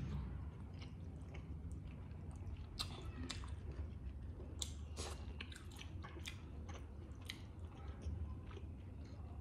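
Two people chewing steamed momo dumplings, with soft wet mouth smacks and clicks scattered irregularly throughout.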